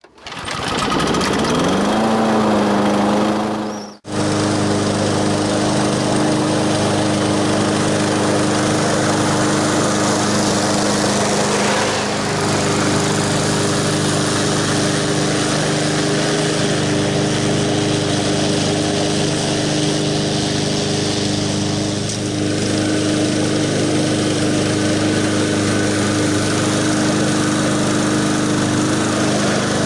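Honda HRX217VKA walk-behind lawn mower's engine running steadily under load while cutting grass. In the first few seconds a shorter sound with a rising pitch cuts off abruptly.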